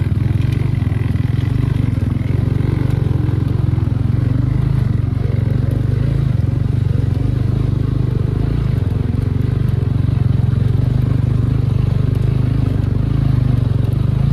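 Motorcycle engine running steadily under way, a constant low drone with no big revs up or down.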